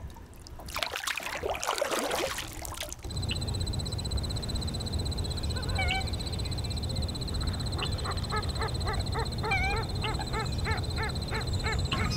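Ducks quacking in a rapid series of calls, about three a second, over a steady high-pitched trill from the marsh. The first three seconds hold bursts of rough noise like water being splashed.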